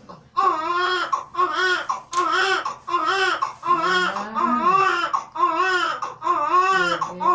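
Newborn baby crying just after birth: a run of short, rapid wails, each rising and falling, about one and a half a second, starting a moment in.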